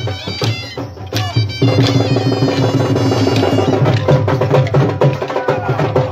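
Live folk dance music: a reed wind instrument playing a melody in long held notes over regular drum beats, the music growing fuller about two seconds in.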